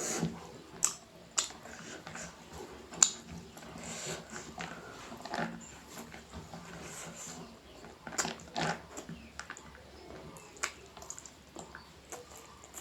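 Close-up eating sounds: chewing and wet mouth smacks, with a run of sharp clicks.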